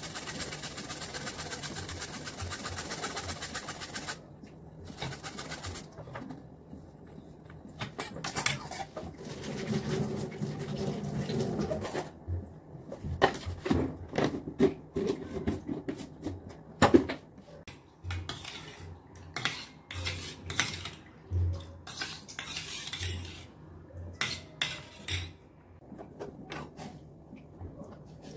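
Jaggery being grated, a rapid even scraping for about four seconds, then a spoon and utensils clinking and knocking against pots and dishes, with one sharp clank about halfway through.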